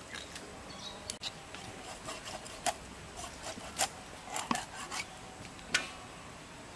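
A whole carp being cut into steaks on an upright boti blade: scales and skin rasping against the steel, with about five sharp cracks as the blade goes through the flesh and backbone.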